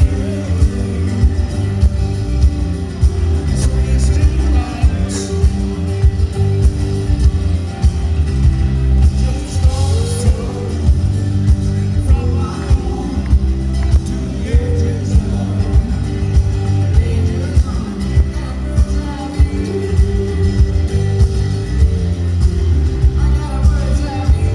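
Rock band playing live, with a steady drum beat, heavy bass, guitar and singing.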